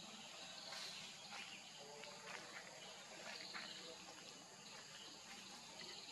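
Faint outdoor ambience of a steady high-pitched insect chorus, with a few short sharp clicks in the first few seconds.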